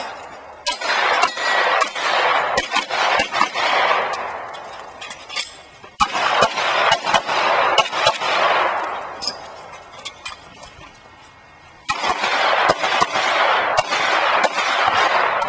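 Glock pistol fired in three rapid strings of shots with short pauses between them, each string trailing off in a ringing echo, as a competitor shoots a timed USPSA stage.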